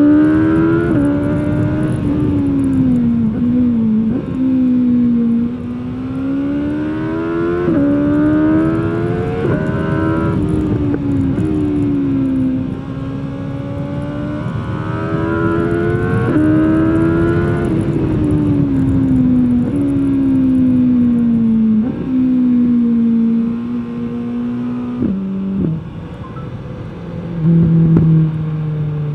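2021 BMW S 1000 R's inline-four engine through its stock exhaust, heard from the rider's position. Its pitch climbs and falls again and again as the bike speeds up and slows, with a few short blips, and drops to a low steady note near the end.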